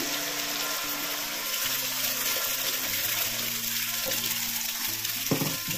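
Wet ground masala paste sizzling as it is poured from a mixer jar into hot oil in a kadai: a steady frying hiss.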